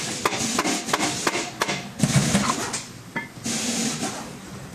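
Rusty drum-brake shoe adjuster screw being handled and turned in gloved hands over a metal bench: several sharp metallic clicks in the first two seconds, then longer scraping and rubbing sounds.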